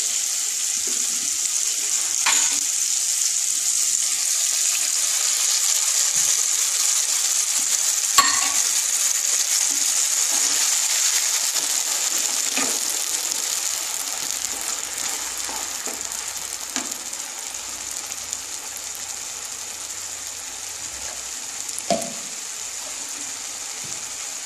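Mustard oil and vegetables sizzling in a frying pan as thinned mustard paste goes in and is stirred with a wooden spatula, with a few light clicks of utensils. The sizzle eases off about halfway through as the wet paste cools the pan.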